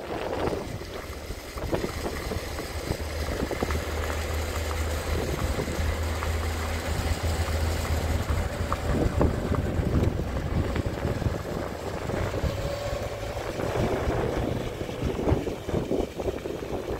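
A car driving along a rough gravel track, heard from inside the cabin: a steady low engine hum with tyre and road rumble and occasional knocks.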